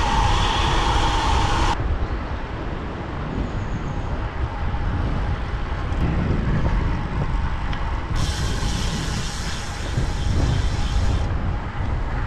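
Wind buffeting the microphone, with tyre rumble on asphalt, as a road bike coasts downhill at speed. A brighter hiss joins for about three seconds near the end.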